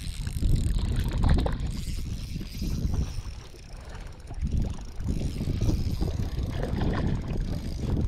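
Wind buffeting the microphone in uneven low rumbling gusts, easing off briefly near the middle.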